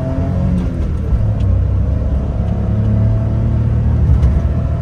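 Honda Acty Street kei van's small engine accelerating hard, heard from inside the cab. Its pitch climbs, drops about half a second in as it shifts up, then climbs steadily again.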